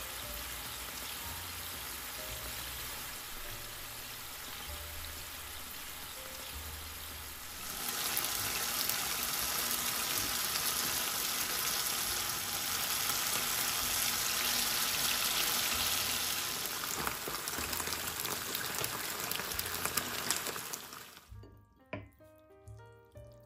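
Braising sauce bubbling and sizzling in a frying pan with tofu and vegetables, a steady crackle that grows louder about eight seconds in. The sizzle cuts off shortly before the end, and soft piano music follows.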